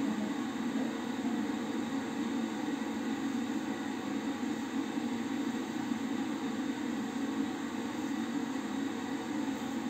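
Bathroom extractor fan running with a steady, even hum.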